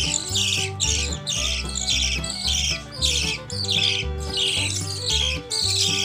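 Background music with a steady beat, a bass line and a held melody.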